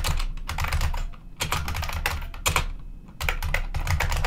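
Fast typing on a computer keyboard: several quick runs of key clicks separated by short pauses.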